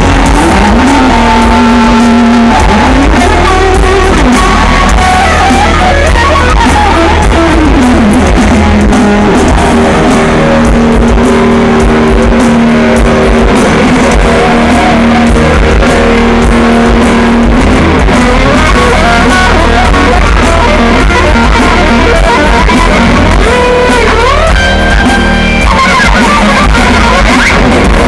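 Live rock band playing loud, electric guitar to the fore, as heard from the audience.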